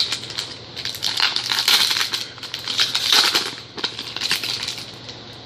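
Trading card pack wrapper being torn open and crinkled by hand, an irregular run of crackling rustles and small clicks.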